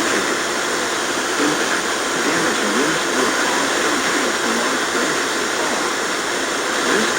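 Steady radio static hiss from a weak weather-radio signal, with a faint, barely intelligible voice reading a broadcast underneath it.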